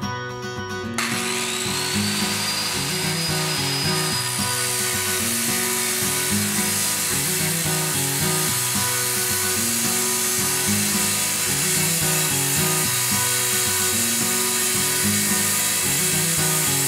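Corded circular saw starting up and cutting through plywood: its whine rises as the blade spins up about a second in, then the cut runs on steadily.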